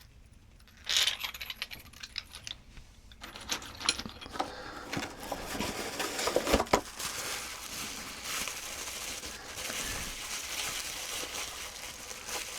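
Knapped stone points and preforms clicking and clinking against one another as they are handled, with a cluster of sharp clinks about a second in. From about three seconds in there is a steady rustle with many small clicks, as of the pieces being sorted among their packing.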